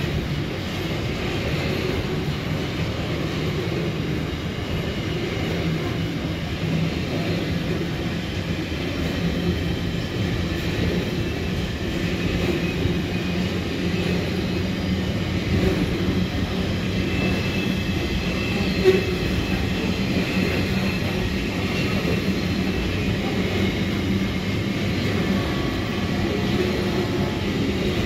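Grain hopper wagons of a freight train rolling slowly past on the rails: a steady rumble of wheels and running gear, with one sharp knock about two-thirds of the way through.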